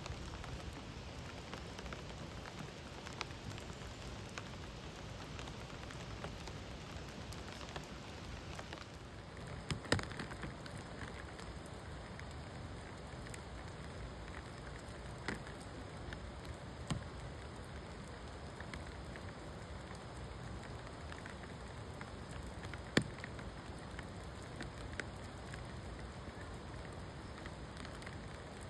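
Steady hiss of water, with scattered sharp clicks and taps over it; the loudest taps come about ten seconds in and again later on.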